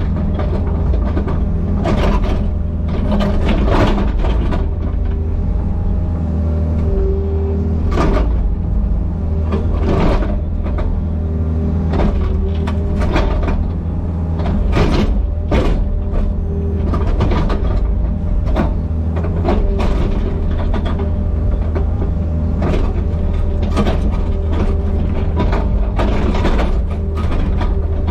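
Excavator's diesel engine running steadily under load, with frequent irregular knocks and clanks from the machine working.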